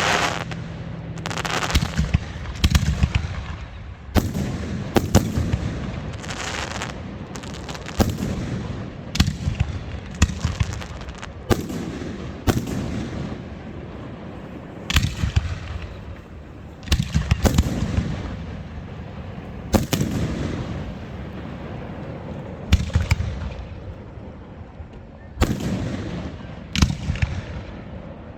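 Fireworks going off in a steady series, a sharp bang every second or two, each followed by a rumbling echo.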